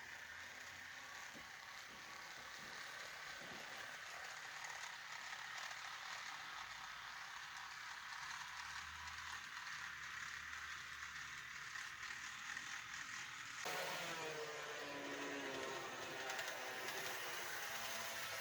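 Bachmann Spectrum N scale Dash 8 model locomotive running on the layout: a small electric motor whirring with wheels rolling on the rails, slowly getting louder. About three quarters of the way through the sound changes suddenly and a wavering whine joins in.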